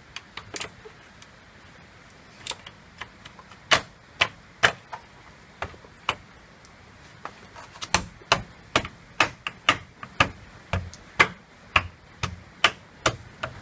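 Plastic hubcap being pressed and tapped into place on a minivan's wheel by hand: sharp clicks and knocks, scattered at first, then about two a second through the second half.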